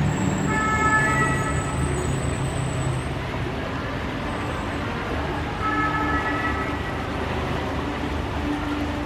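Road traffic running steadily: a low rumble of vehicles under a hiss, with two brief bursts of high, level tones, like a horn or distant siren, about half a second in and about six seconds in.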